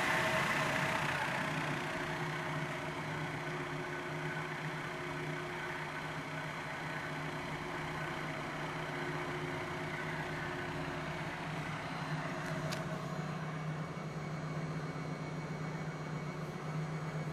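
Kokusan CS77 basket centrifuge running at speed, its electric motor and spinning 18-inch basket giving a steady hum and whine. A hiss over it eases during the first couple of seconds.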